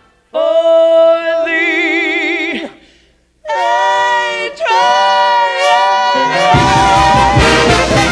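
A jazz break: with the band silent, a trombone and a woman's voice sound a held note that takes on vibrato, then, after a short pause, a run of scooping, bending phrases. About two-thirds of the way through, the full swing band comes back in.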